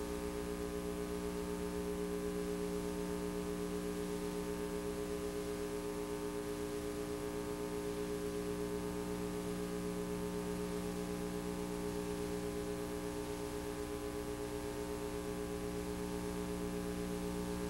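Steady electrical hum and buzz of several held tones over faint hiss, the noise of a VHS transfer's blank audio track.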